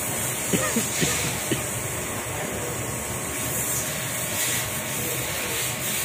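Belt conveyor and cement bag-packing machinery running with a steady hum and hiss, with a few short squeaks about half a second to a second and a half in.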